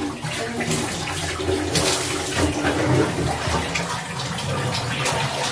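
Shower water running behind the curtain, a steady rush of spraying water.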